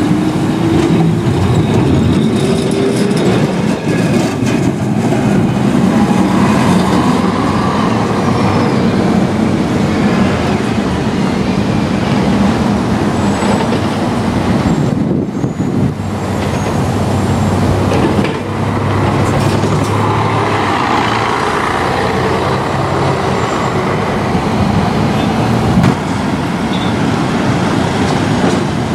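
Vintage Lisbon Remodelado tram running along street rails, its wheels and running gear rumbling over steady city traffic noise. The sound breaks off briefly about halfway, then tram and road traffic carry on.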